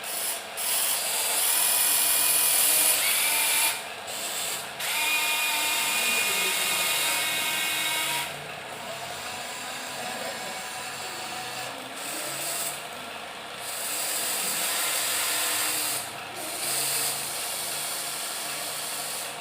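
Small electric motors and plastic gearboxes of radio-controlled construction models whining, starting and stopping in stretches of a few seconds.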